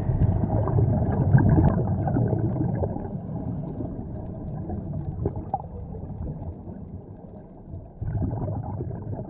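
Muffled bubbling and gurgling water, full of small irregular pops, stronger in the first few seconds, fading, then swelling again near the end.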